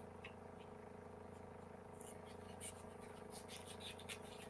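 Faint snips of small micro-tip scissors cutting paper, a scattering of short clicks in the second half, over a steady low hum.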